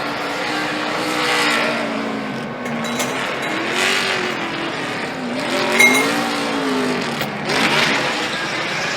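NASCAR stock car's V8 revving up and down during a burnout, the engine pitch rising and falling several times while the spinning rear tires screech in repeated surges.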